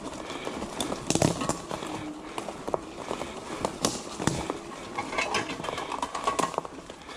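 Cyrusher Ranger electric bike rolling over dry leaves and twigs on a woodland floor: the tyres crackle and snap twigs, with irregular clicks and knocks from the bike over bumps and a faint wavering low hum at times.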